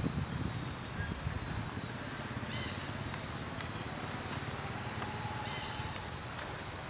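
Steady low outdoor background rumble, with no distinct sounds standing out.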